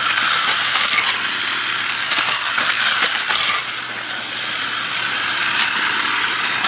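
Battery-powered light-up toy cars running on snap-together flexible plastic track, making a steady, dense clicking rattle as their small plastic wheels run over the track links.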